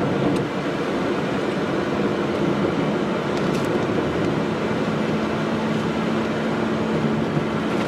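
Steady road and engine noise heard from inside a moving car's cabin, with a low steady hum joining about halfway through.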